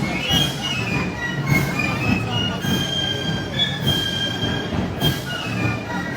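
Live festival band music played in the street: a high melody of held notes stepping up and down over dense crowd noise, with a few short crashes.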